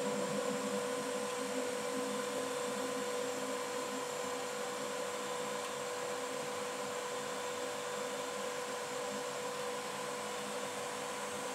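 Blown film extrusion line running: a steady machine whine at a constant pitch over a rush of air, from the die's air ring blower and the extruder drive.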